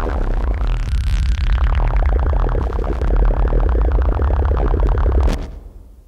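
Modular synthesizer output from a crucFX Kosmo-format module built on the Ciat-Lombarde Rollz rhythm circuit: a fast, clicky pulse pattern over a steady deep bass. About a second in, a high sweep falls in pitch. The sound fades out near the end.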